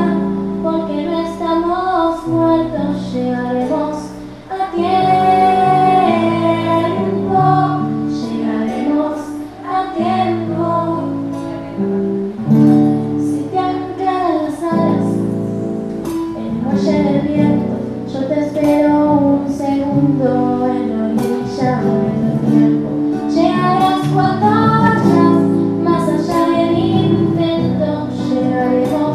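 A teenage girl singing a Spanish-language ballad into a microphone, accompanied by a strummed and plucked acoustic guitar.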